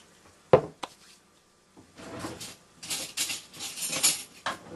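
A sharp knock as a kitchen item is set down on the countertop, with a smaller knock just after, then a couple of seconds of clattering and rustling as things on the kitchen counter are handled.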